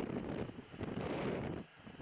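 Strong wind buffeting the microphone, an uneven low noise that drops away sharply about one and a half seconds in.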